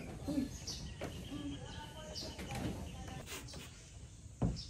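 Faint bird chirps over low outdoor background noise, with a thump near the end.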